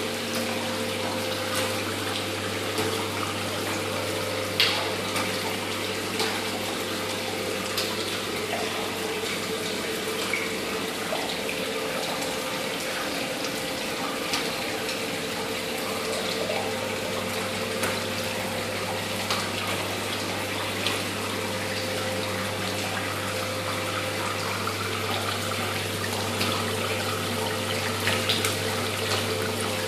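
Water spraying steadily from a row of nozzles down a stainless-steel trough urinal wall and splashing into the gutter drain. The flush is left running nonstop, with a steady low hum underneath.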